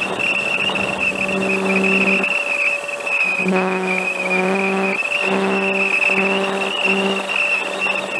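Twin 1806 brushless motors and propellers of an RC park flyer, heard from its onboard camera, running with a steady high whine that wavers slightly over a rush of air noise. A low, even note cuts in and out several times.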